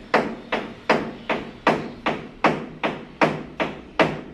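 Steady hammer blows, a sharp knock about two and a half times a second, each dying away quickly.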